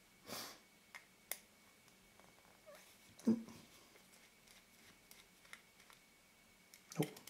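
Light clicks from small lens screws and a screwdriver being handled. Two short vocal sounds stand out above them, one about three seconds in and one near the end.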